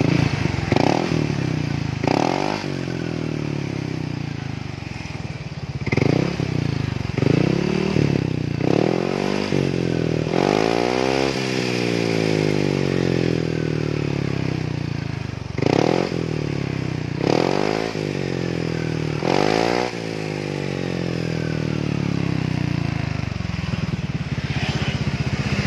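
Yamaha NMAX scooter's single-cylinder four-stroke engine running through an SKR aftermarket 'standar racing' muffler, a stock-looking silencer. It idles between about ten quick throttle blips, with one longer rev that rises and falls about ten seconds in. The exhaust note is smooth and soft ('adem', 'halus').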